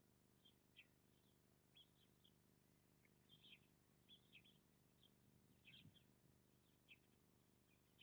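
Faint, scattered chirps of small birds, heard through an IP surveillance camera's microphone over a low steady electrical hum.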